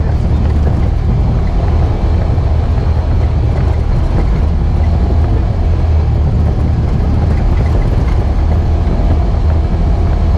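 Twin-cylinder engine of a 2017 Polaris RZR 900 Trail side-by-side running at a steady pace while driving a dirt trail, heard from inside the cab as a steady low drone mixed with trail noise.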